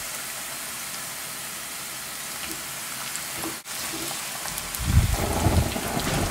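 Sliced potatoes and onion sizzling in hot olive oil in a frying pan, a steady hiss. About four and a half seconds in, a wooden spoon stirring and pushing the slices around the pan adds louder scraping and rustling.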